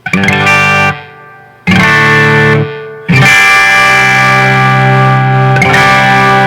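Electric guitar chords through a Marshall DSL40C tube amp, with a noise-gate pedal switched on. Four chords are struck: the first two are cut short, and the last two ring on.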